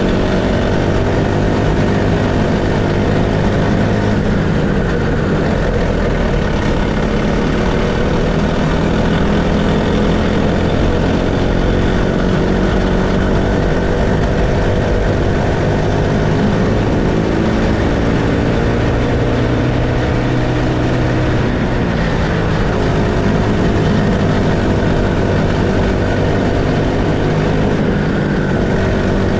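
Honda GXH50 50cc single-cylinder four-stroke kart engine running hard under racing load, its pitch dipping and climbing again several times as the kart slows and accelerates around the lap.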